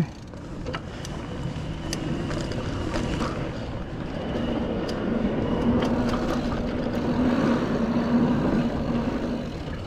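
Mountain bike riding over dirt rollers and a wooden-slatted berm: knobby tyres rolling, a few sharp rattles and ticks from the bike, and wind rushing over the camera microphone. A steady low hum sets in about halfway through, while the bike is on the wooden berm, and fades near the end.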